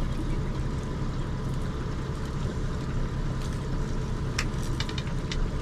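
Boat's outboard motor running steadily at low trolling speed, a constant low hum. A few sharp clicks come about four to five seconds in.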